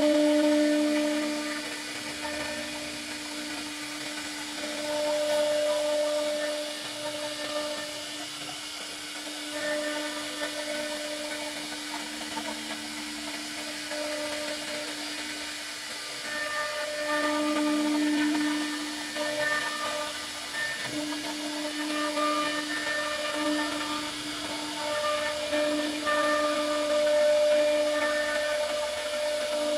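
CNC router spindle cutting wood with a profiling bit: a steady hum over the hiss of cutting, swelling louder and easing off every few seconds.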